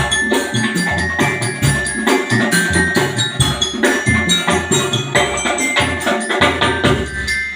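Drum band playing: drums beating a quick, steady rhythm under a bright melody on mallet bells (bell lyra).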